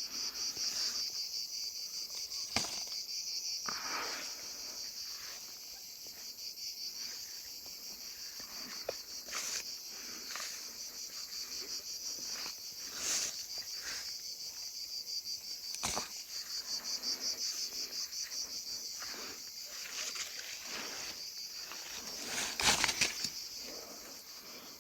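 Insects chirring steadily in a high, fast-pulsing trill, with a few scattered knocks and rustles, the loudest near the end.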